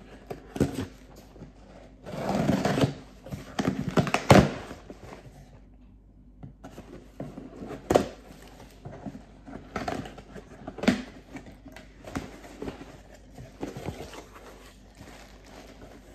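Scissors cutting through packing tape on a cardboard box, with rasping tape and cardboard noise, loudest a few seconds in, and scattered clicks and knocks as the box flaps are pulled open.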